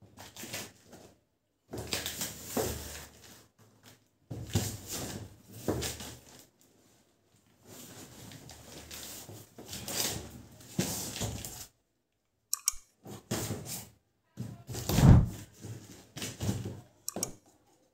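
A strapped cardboard carton is handled and shifted across a hard floor, with irregular scraping, rustling and knocking. Sharp clicks come near the end, and one heavy thump follows as the box is handled.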